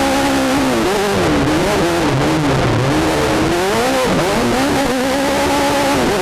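Class 10 desert race car's engine heard from inside the car, running at high revs at a steady pitch. Between about one and four seconds in, the revs drop and rise again, all over constant wind and road noise.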